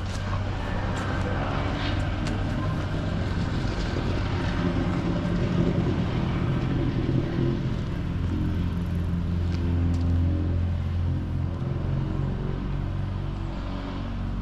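A motor vehicle's engine running with a steady low hum, its pitch shifting slightly about eight seconds in.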